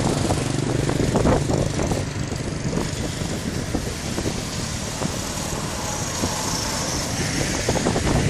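Jet airliner on final approach passing low, a steady rumble of engine noise with a high whine rising near the end, over wind on the microphone.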